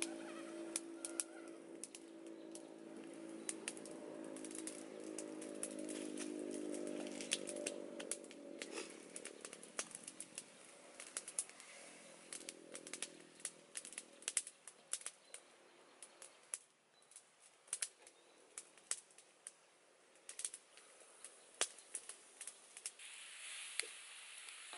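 Small wood cooking fire crackling with many sharp pops and clicks, over a steady low drone that fades out a little past halfway. Near the end, cassava leaves begin to sizzle in the hot wok as they are stirred.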